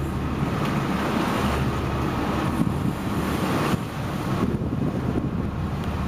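Steady wind buffeting the microphone over the running of a sportfishing boat and the wash of the open sea, a low rumble that stays even throughout.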